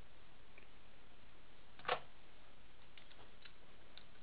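Faint steady hiss with one sharp click about two seconds in and a few light ticks near the end, from small screwdriver bits and tools being handled while a T8 Torx bit is sought.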